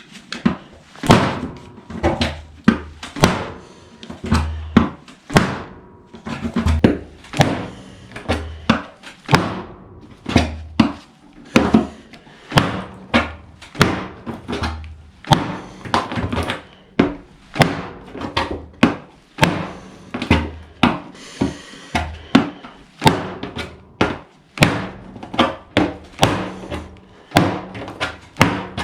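A Victorinox Hunter XS pocketknife being struck hard and repeatedly into a target in a steady run of sharp impacts, a little more than one a second, as part of a destruction test.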